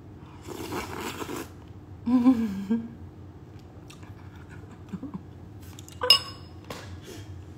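A person slurping soup from a metal spoon: a loud sucking slurp about half a second in that lasts about a second. It is followed by a short hummed 'mm' and small mouth and spoon clicks, and a brief ringing clink about six seconds in.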